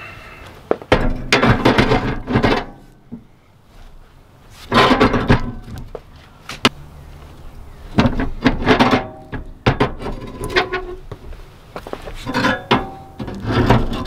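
Long steel bar levering against a bent steel step grate on a backhoe to straighten it: bouts of clanking and scraping metal on metal, some with a short ring, about five times.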